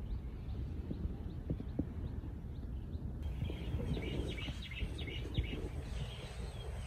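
Low, steady outdoor rumble of wind and surf, with small birds chirping. The chirps are faint at first, then a quicker run of chirps comes about three seconds in.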